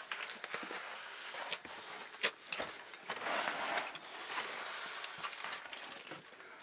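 Handling noise: rustling and scraping of a pack and clothing against rock, broken by scattered sharp clicks and knocks, the loudest about two seconds in.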